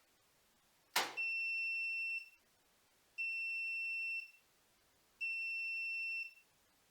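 Siemens iQ700 washing machine's end-of-programme signal: three long, steady, high beeps about two seconds apart, with a sharp click just before the first.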